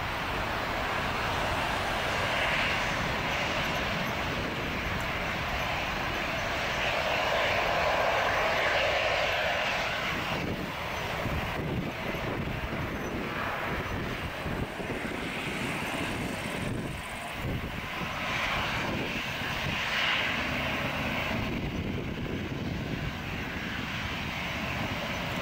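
Two jet engines of a Boeing 767-400ER at takeoff thrust, a continuous roar as the airliner rolls down the runway and lifts off, heard from behind the aircraft. The roar swells a little about eight seconds in, then eases as the jet climbs away.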